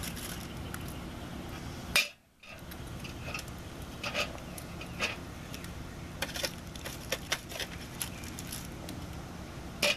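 Metal tongs clinking and scraping against the steel wire grate of a small drum smoker as rib halves are laid on it: scattered sharp clicks over a steady low hum. The sound drops out briefly about two seconds in.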